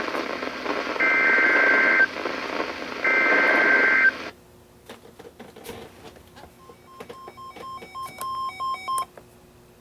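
NOAA Weather Radio SAME header data bursts: warbling two-tone digital bursts about a second long, a second apart, over broadcast hiss, which announce a new alert. The broadcast audio then cuts off abruptly, and a few seconds later a weather radio receiver sounds a quick series of short electronic beeps at stepped pitches.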